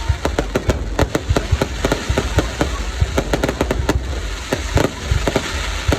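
Fireworks display: a rapid, irregular string of sharp bangs and pops from bursting shells, over a steady low rumble.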